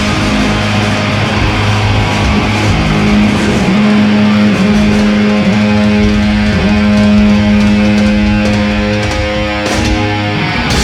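Live heavy metal band's big ending: distorted electric guitar and bass hold long sustained chords over a wash of cymbals, with a few drum hits near the end.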